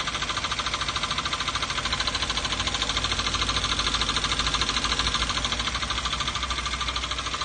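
2012 Toyota Avanza's 1.5 L 3SZ-VE four-cylinder engine running with a rapid, even knock; a deeper rumble swells through the middle. The knock persists after an oil change and all four spark plugs were replaced.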